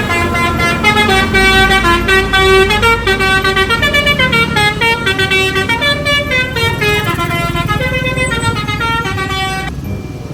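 Bus's Basuri telolet horn, a multi-tone musical air horn, playing a quick tune of stepped notes over a low rumble. It cuts off abruptly near the end.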